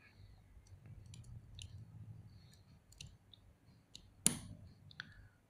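Small armor pieces of an action figure clicking and tapping as a shoulder piece is handled and fitted onto the figure, with one sharp, louder click about four seconds in.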